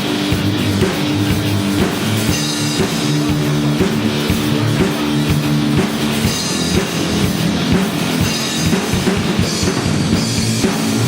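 Live rock band playing, with a drum kit beating steadily under guitar.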